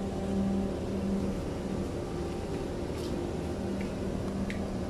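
A steady low mechanical hum with a pitched drone that drops away for a couple of seconds mid-way and comes back, with two faint clicks near the end.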